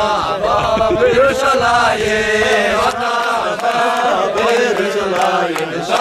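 Voices chanting, a sung melody whose pitch slides and bends from note to note.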